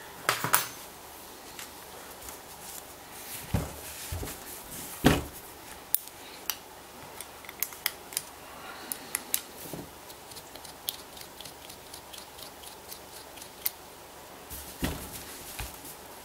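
Scattered metal clicks and knocks of hand work on a Biax machine scraper: its head nuts being undone with a spanner and by hand and set down, and the metal casing being handled. Louder knocks come about half a second, three and a half and five seconds in and again near the end, with a run of small ticks in between.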